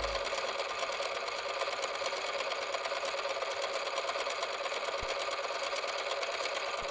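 Super 8 film projector running with a steady, rapid mechanical clatter.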